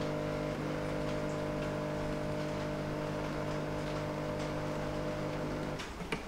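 BOXR home espresso maker's pump humming steadily while pulling an espresso shot. It cuts off abruptly near the end as the shot ends, and a click follows.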